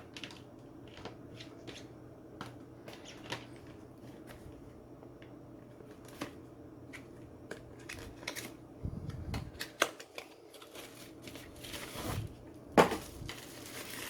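Hands unpacking a plastic USB charger and its cable from their box: scattered light clicks, taps and rustles, with a dull thump about nine seconds in and a sharper knock near the end.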